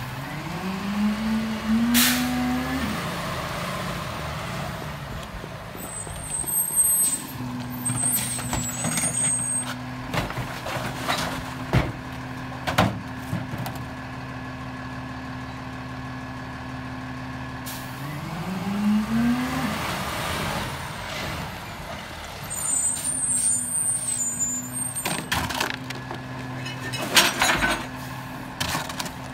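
Freightliner M2106 garbage truck's diesel engine idling, speeding up twice as the Heil Durapack 5000 rear-loader packer is cycled, once near the start and again about two-thirds through. Sharp metal knocks of bins and the packer in the hopper, an air-brake hiss and some thin high squeals come over the idle.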